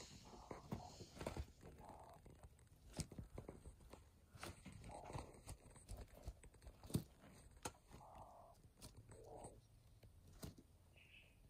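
Quail pecking and tearing at a tray of wheatgrass: many short sharp ticks and snips of the bill on the blades, with a few soft, short low calls in between.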